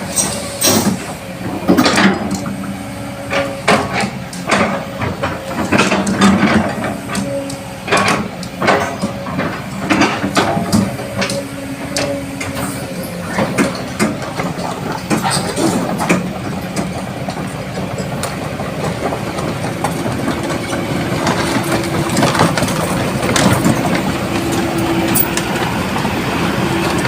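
Kobelco SK200 excavator's diesel engine running, with repeated clanks and knocks through the first half. In the last third the running note becomes steadier and slowly gets louder.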